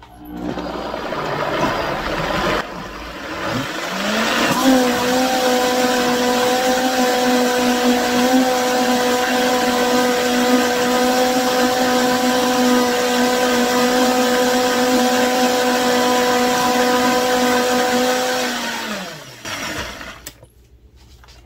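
High-powered countertop blender pureeing a thick chickpea dip: the motor starts at lower speed, ramps up about four seconds in to a steady high-speed whine, and winds down with a falling pitch near the end.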